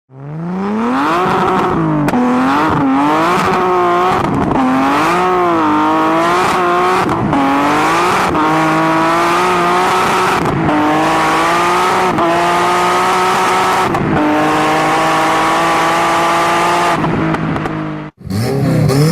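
Performance car engine and exhaust revving. It rises quickly at the start, swings up and down several times, then holds a high, nearly even pitch for several seconds with a few short breaks, and cuts off suddenly near the end.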